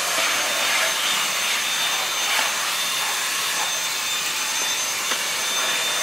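Handheld Dyson cordless vacuum with a crevice nozzle running steadily across a hard floor: an even airy rush with a thin high whine over it.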